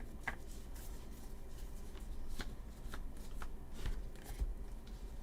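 2023 Topps Series 2 baseball trading cards being handled and flipped through, with irregular soft clicks and slides of card stock.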